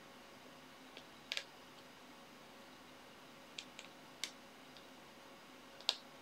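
A stiff sheet of card is handled and pierced with a needle to make a hole. There are a handful of faint, sharp ticks and clicks, irregularly spaced, the loudest about a second and a half in and near the end.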